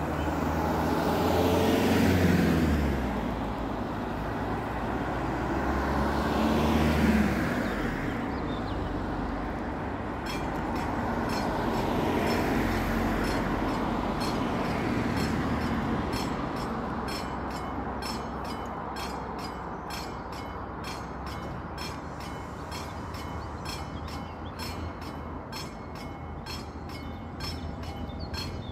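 Two cars pass by, then about ten seconds in a level crossing's classic mechanical warning bell starts ringing, struck in an even rhythm of about two strokes a second. Under it runs the low steady idle of a diesel railbus waiting at the crossing.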